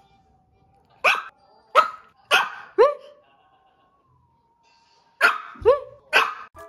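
A Pomeranian barking in short, sharp barks: a run of four about a second in, a pause, then three more near the end. Demand barking for a treat.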